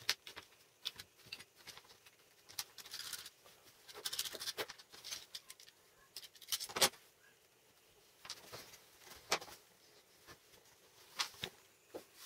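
Utility knife blade carving and scraping inside a hole in a small wooden block: a string of short, scratchy scrapes and clicks.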